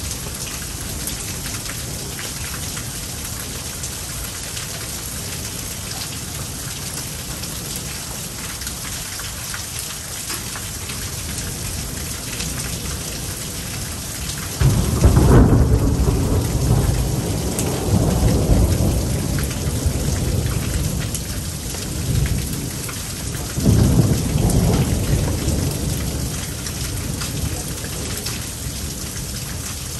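Steady rain throughout, then a sudden loud thunderclap about halfway through that rolls on as low rumbling thunder, swelling again a few times before fading.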